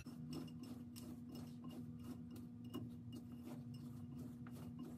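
A spoon stirring dry snack mix of pretzels and cereal in a bowl, making a quick run of light clicks and scrapes, about four or five a second, over a steady low hum.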